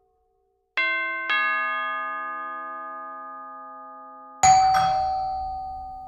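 Doorbell chime: a two-note ding-dong about a second in, the second note lower, both ringing on and slowly fading. About four seconds in, a second, louder chime strikes and rings out.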